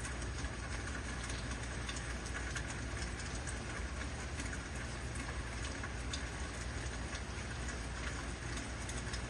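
Heavy rain falling steadily, with many separate drops ticking through the hiss and a steady low rumble underneath.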